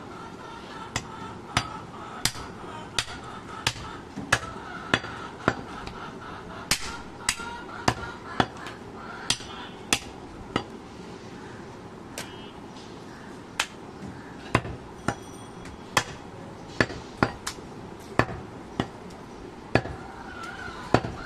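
Butcher's cleaver chopping through a goat leg on a wooden chopping block: sharp repeated strikes, about one to two a second, with a short lull in the middle.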